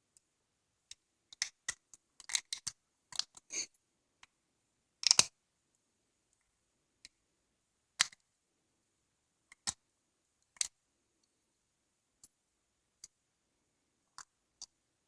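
Sharp metallic clicks and taps of small parts of a Soviet single-speed coaster-brake rear hub being handled and fitted, as a washer and retaining ring (circlip) go on. A quick cluster of clicks in the first few seconds, the loudest knock about five seconds in, then scattered single clicks.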